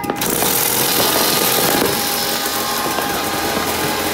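New Year's Eve fireworks going off, a dense, steady hissing crackle that starts suddenly.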